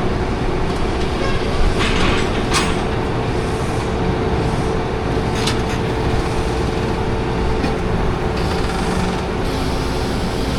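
Large farm-machinery engine running steadily, with a few metallic clanks and rattles over it.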